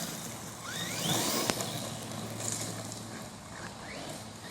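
JLB Cheetah RC monster truck's electric motor whining up in pitch in several short bursts of throttle, with one sharp tick about a second and a half in.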